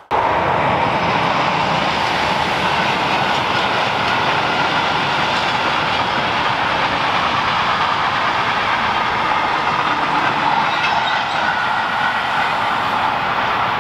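Freight train passing close by, its wagons' wheels rolling on the rails in a steady loud rush that starts abruptly.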